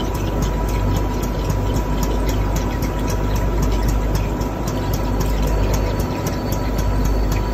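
Steady mechanical running noise from a machine tool's coolant sump and its pump, a low rumble with a constant steady tone, while the coolant churns and bubbles at the surface with a fast, irregular crackle of small ticks.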